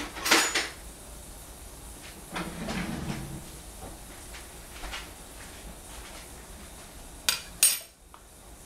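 Kitchenware being handled: sharp clinks and knocks, a loud pair about a second in, a duller scraping knock around three seconds, and two quick sharp clicks near the end.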